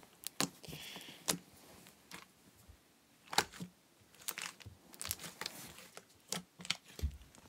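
Hands poking and kneading a fluffy slime, making scattered sticky clicks and pops with quiet gaps between them.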